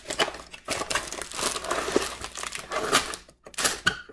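A LEGO set's cardboard box being opened and its plastic parts bags pulled out: a run of irregular crinkling and rustling of cardboard and plastic.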